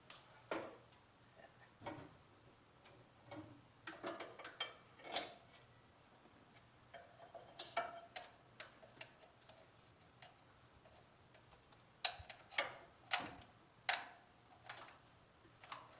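Scattered, irregular clicks and light metal knocks of hand tools being handled under a truck at the oil filter. About four sharper clanks come between twelve and fourteen seconds in.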